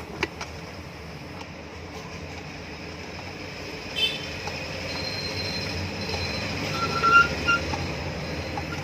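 Hand work on a ceiling fan motor housing, tightening the cover screws with a screwdriver: a sharp metal click just after the start, another about four seconds in, and short squeaks near the end, over a steady low rumble that slowly grows louder.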